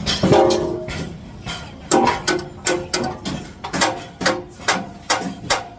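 Hammer striking aluminium formwork panels and their pins and wedges, a run of sharp knocks about two to three a second, some ringing briefly.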